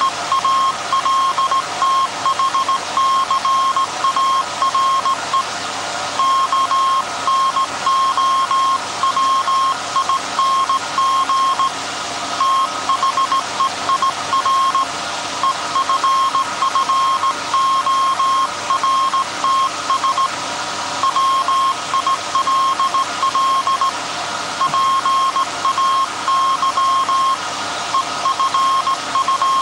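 Hand-sent Morse code from a straight key, heard as a beeping tone of about 1 kHz keyed on and off in dots and dashes, with short breaks between groups. This is the message being sent by the 1924 Alexanderson alternator transmitter, call sign SAQ. Beneath it is a steady machine hiss from the running alternator.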